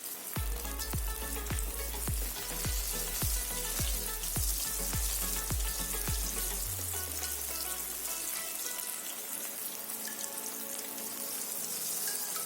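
Breaded vegetable cutlets frying in hot oil in a kadhai: a steady, dense sizzle. Background music with a deep beat about twice a second plays along and stops about seven seconds in.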